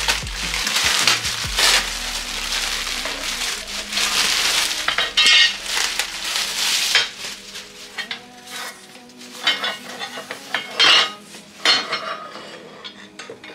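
Plastic bags and a foam packing sheet rustling and crinkling as black metal dish-rack frame pieces are unwrapped. A few sharp clinks and knocks from the metal parts follow later on.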